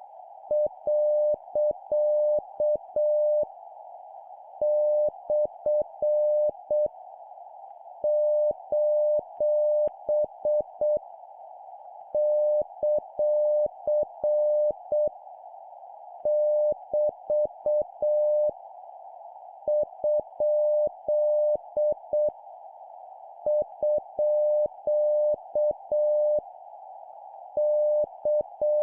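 Morse code tone of about 600 Hz keyed in dots and dashes at 7 words per minute, sending punctuation marks as characters separated by pauses of about a second. It sounds over a narrow band of receiver-like hiss, with a faint click at each start and stop of the tone.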